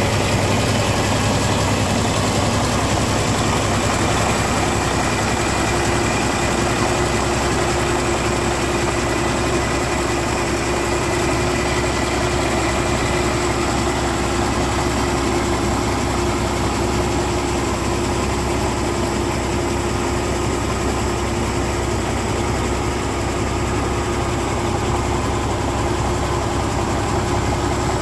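Cummins heavy-truck diesel engine idling steadily, a constant low hum with a held mid-pitched drone.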